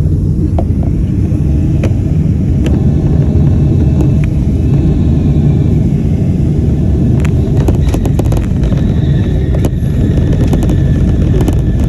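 Steady loud low rumble of a moving vehicle, with scattered light clicks and ticks, a cluster of them about two-thirds of the way through.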